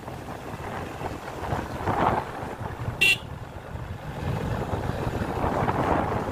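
Wind buffeting the microphone and road noise on a moving motorcycle, with one short horn beep about three seconds in.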